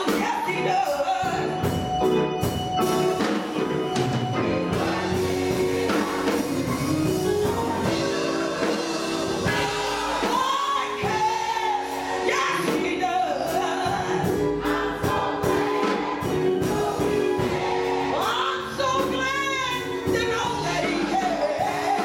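Gospel choir singing held chords while a woman soloist leads over them on a microphone, her voice wavering in a strong vibrato near the end.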